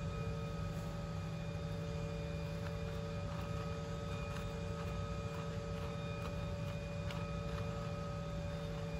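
Steady hum of workshop machinery holding several fixed tones, with faint scattered ticks from about three seconds in.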